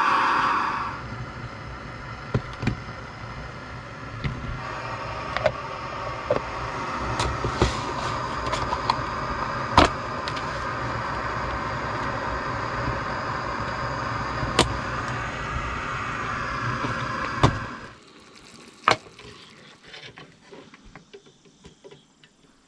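Camp Chef Stryker canister gas stove burning under its pot with a steady hiss and low rumble, louder in the first second, then cutting out about 18 seconds in. Scattered clicks and plastic crackles from an egg carton being handled over it.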